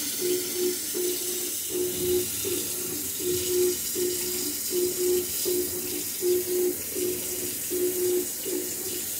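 Kitchen faucet running a steady stream of cold water onto a plastic blower-motor filter held in the sink, rinsing the dust out of it. Underneath, a low hum pulses on and off about twice a second.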